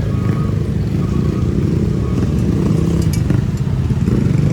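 A vehicle engine running steadily in road traffic, a continuous low rumble.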